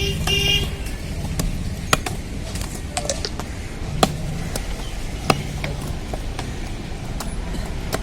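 Knife chopping fish on a cutting block: irregular sharp strikes, three of them louder than the rest, over a steady low engine rumble from traffic.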